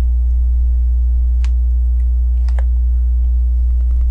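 Steady low electrical hum with a few light clicks of plastic LEGO pieces being handled: one click about a second and a half in and a quick cluster of clicks about two and a half seconds in.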